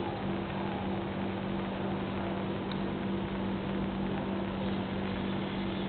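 A steady machine hum with a low, even pitch and a hiss over it, holding unchanged throughout.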